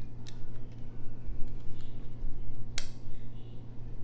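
Small sharp clicks of metal tweezers against phone parts: a few light ones and one louder click nearly three seconds in, over a steady low hum.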